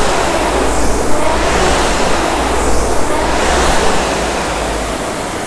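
Concept2 rowing machine's air-resistance flywheel fan whooshing under hard rowing, swelling with each drive stroke about every two seconds. Near the end the rowing stops and the whoosh fades as the flywheel spins down.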